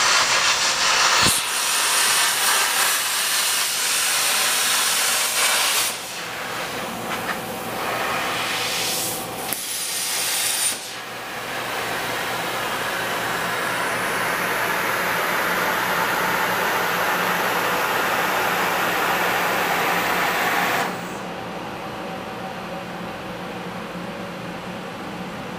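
A workshop tool working the portrait, giving a loud, steady hiss. The hiss dips about six and eleven seconds in, then drops to a quieter, even hum about 21 seconds in.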